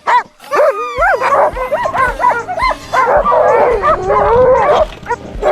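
A team of harnessed sled dogs barking and yelping excitedly, with many short overlapping yips and howl-like calls, eager to start pulling. After a brief lull near the start, they call almost without a break.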